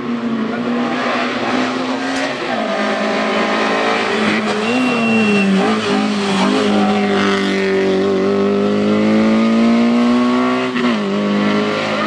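Peugeot 106 race car's four-cylinder engine running hard at high revs through a hairpin, the pitch dropping and climbing several times as the driver lifts, shifts and accelerates away.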